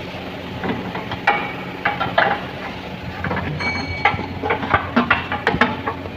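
Metal tools and parts knocking and clinking irregularly during work on a Kia Seltos steering rack, with one clink that rings briefly like struck metal.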